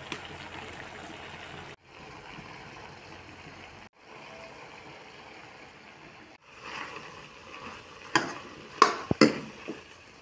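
Green tomato curry sizzling steadily in an iron kadhai. Near the end, a metal spoon knocks against the pan three times as stirring starts.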